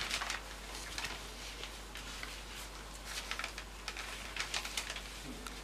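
Cocker spaniel puppies' paws scuffling on sheets of newspaper as they play, giving short, crisp bursts of paper rustling every second or so.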